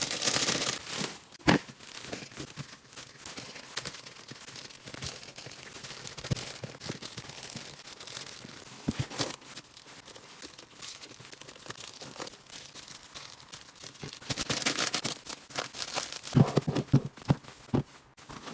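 Plastic packaging crinkling and rustling as household supplies are unpacked and handled, louder at the start and again near the end, with a few sharp knocks of items being set down.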